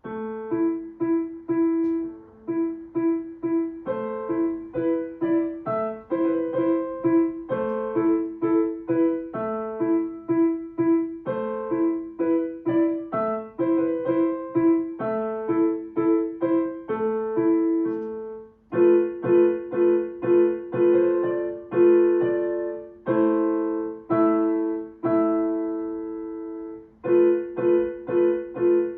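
Solo piano playing a short, rhythmic piece of repeated detached notes, starting suddenly after a pause; it grows louder and fuller about two-thirds of the way through.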